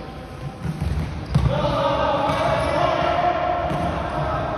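Floorball game in a sports hall: thuds and knocks of feet, sticks and ball on the court floor, with a sharp knock about a second and a half in. Right after it a voice starts a long held shout or chant that lasts about three seconds.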